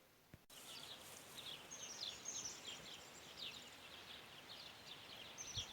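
Small birds chirping, many short high chirps that slide downward in quick runs, over a faint steady outdoor hiss. The sound starts abruptly about half a second in.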